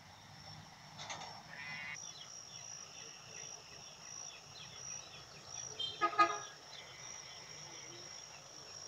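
A steady, high insect drone with scattered small bird chirps. About six seconds in comes a short, loud honk.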